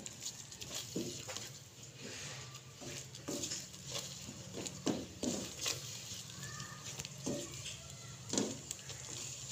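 A spatula stirring and scraping frying spice masala in oil around a nonstick wok: a string of short scrapes and taps against the pan, about one or two a second, over a steady low hum.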